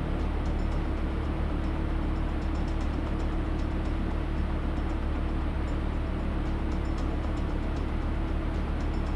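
A steady engine drone with a constant low hum, and faint ticking on top.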